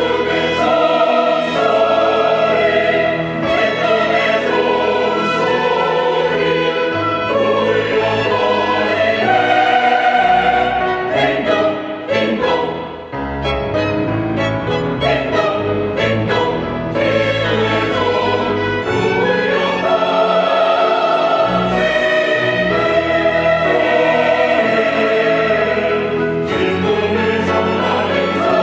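Church choir singing a sacred anthem in sustained, full-voiced chords with instrumental accompaniment, briefly quieter about twelve seconds in.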